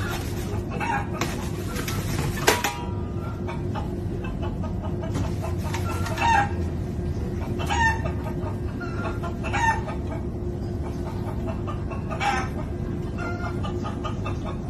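Chicken sound effect played through a Bluetooth speaker: short calls every second or two, with one long, loud call about two seconds in, over the steady low rumble of a train.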